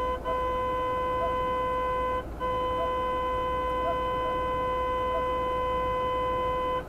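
Vehicle horn sounded to get attention: a brief toot, then a blast of about two seconds, a short break, and a longer blast of about four seconds, all at one steady pitch, cutting off sharply.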